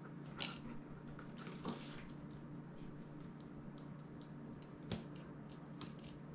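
Small clicks, taps and scrapes of fingers and a small tool working on a disassembled Asus Zenfone's metal frame and internal parts, with four sharper clicks standing out, over a steady low hum.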